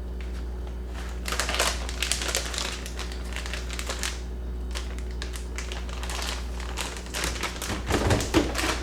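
Plastic cheese packaging crinkling, with irregular light clicks and taps, as a pack of pepper jack cheese is opened and handled.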